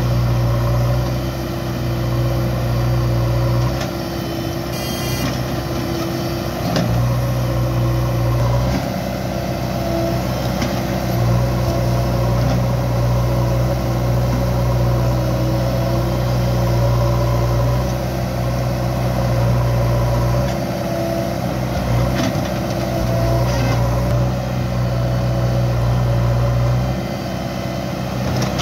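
Diesel engine of a JCB 3DX backhoe loader working under load, its steady low drone easing off for a moment several times as the load changes, with a few short metallic knocks.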